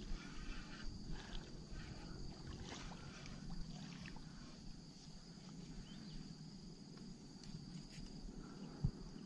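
Faint water splashing and sloshing as a hooked snakehead is reeled through shallow flooded weeds, with a few soft clicks, over a steady high insect drone.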